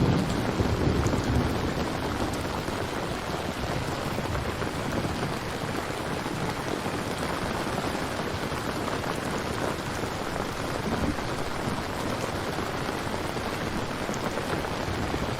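Steady heavy rain. A low rumble of thunder dies away over the first couple of seconds.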